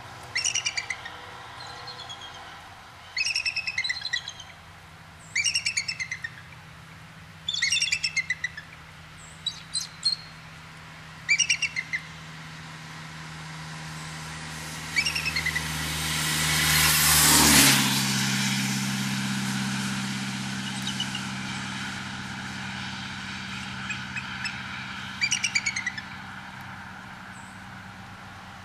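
A pair of bald eagles calling: about eight bursts of rapid, high piping chatter, spaced a couple of seconds apart. A bit past halfway, a passing vehicle swells to become the loudest sound, then drops away suddenly.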